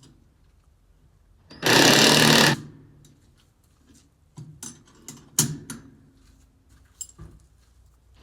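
Impact gun hammering in one burst of about a second, undoing a bolt, followed by a few sharp metallic clinks and knocks.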